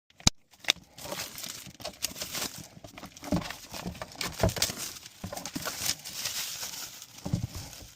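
Handling noise: irregular rustling and crinkling with scattered clicks, two sharp clicks in the first second.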